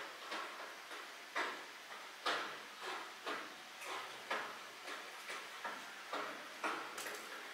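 Repeated sharp knocks, about two a second, each fading quickly, from the audio of a Boston Dynamics Atlas robot parkour video played through a TV soundbar.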